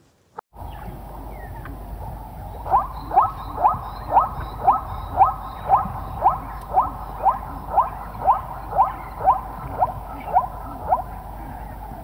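An animal calling a long, very regular series of short upward-gliding notes, about two a second, over a steady outdoor hiss.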